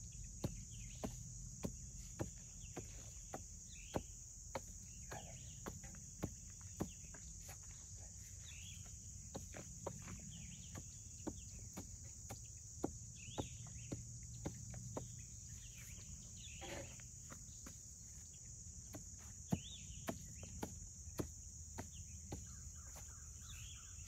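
Repeated sharp knocks, about two a second with short pauses, from a digging tool chopping into hard, dry ground to dig a trap bed, over a steady high trilling of crickets.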